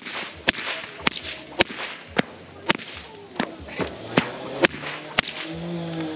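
A whip being cracked over and over, sharp single cracks at about two a second, coming more unevenly in the last few seconds.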